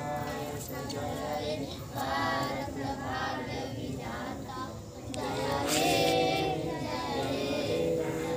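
A group of children, with women, singing together in unison, with long held notes about two-thirds of the way through.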